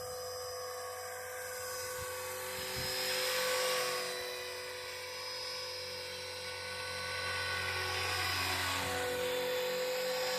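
Radio-controlled scale Bell 206 JetRanger model helicopter in flight, its motor and rotors giving a steady high whine that dips briefly in pitch about eight seconds in and picks up again. A rush of wind noise swells about three seconds in.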